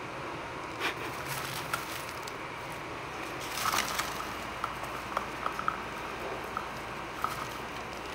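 Screaming hairy armadillo rooting through dry wood-chip mulch with a rubber treat toy: scattered crackles and rustles of the chips, busiest about halfway through, over a steady background hiss.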